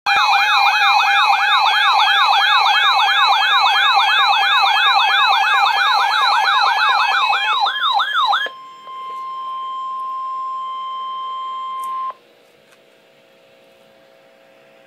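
Emergency Alert System attention signal for a severe thunderstorm warning: a loud, fast-warbling siren-like tone, about three to four sweeps a second over a steady tone. About two-thirds of the way through it gives way to a single steady tone that cuts off sharply after a few seconds, leaving a faint hum.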